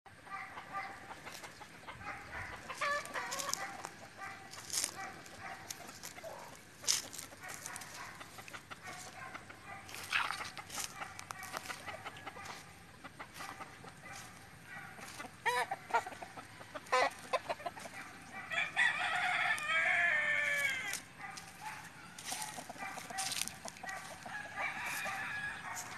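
Roosters crowing and clucking, with one long crow about three-quarters of the way through and shorter calls scattered before it. Sharp clicks come now and then.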